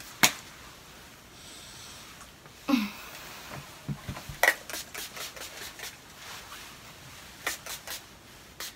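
Pump-spray bottle of perfume body mist spritzed in quick runs of short, sharp hisses, about five in a row and then three more near the end. There is a sharp click near the start.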